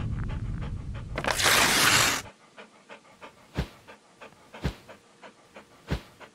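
Intro sound effects: a low rumble that ends in a loud rushing burst of noise about two seconds in, then a dog panting in quick soft breaths, about three a second, with three louder beats.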